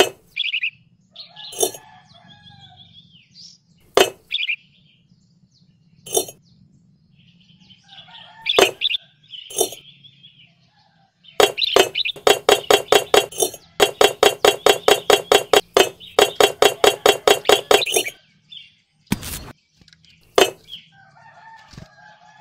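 Birds chirping over a faint low hum, broken by several sharp clicks. Through the middle there is a fast, even run of repeated notes lasting about six seconds.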